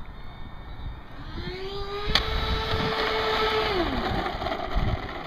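RC Su-35 model plane's electric motor throttled up about a second in, holding a steady whine, then throttled back a few seconds later. Wind buffets the microphone throughout.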